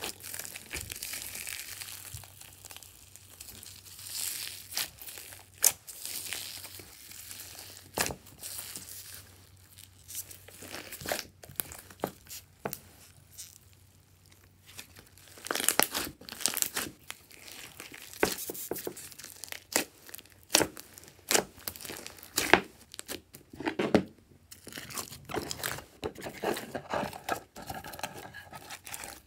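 Glossy slime mixed with foam beads being squished and stretched by hand, giving irregular wet crackles, sharp pops and crunchy crinkling.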